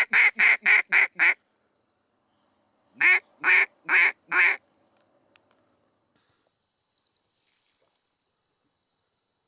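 Wooden duck call blown in quacks: a quick run of about six in the first second and a half, then four slower quacks about three seconds in.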